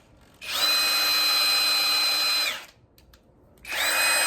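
Hercules brushless 3/4-inch high-torque impact wrench free-spinning with no load: two trigger pulls of about two seconds each, the motor whine rising as it spins up and dropping as it winds down, with a short quiet gap between.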